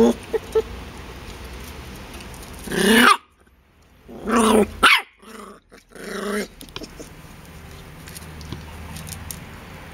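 Jack Russell terrier puppies barking and growling in short, high calls: one loud call about three seconds in, then a quick run of three or four more between four and six and a half seconds, after which it goes quiet.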